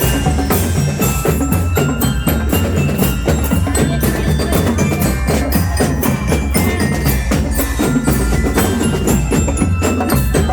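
Loud, continuous percussion music: dense drumming with strong bass and bright, bell-like struck tones over it.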